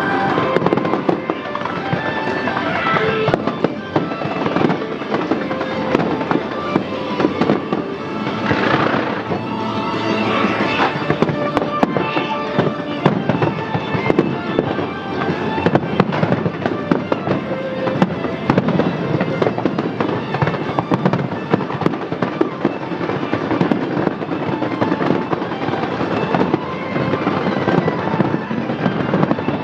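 A fireworks display: a dense, continuous barrage of bursts, bangs and crackles, with music playing alongside.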